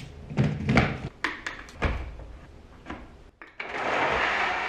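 Knocks and clicks of a blender jar being handled, fastened and set on its motor base. About three and a half seconds in, the compact personal blender's motor starts and runs steadily, blending a smoothie of banana, dates, avocado, protein powder and cashew milk.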